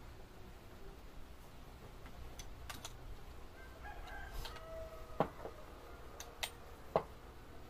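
Scattered metal clicks and knocks from a trim router being handled while its profile bit is fitted and its base clamped on, the sharpest about five and seven seconds in. A rooster crows faintly about four seconds in.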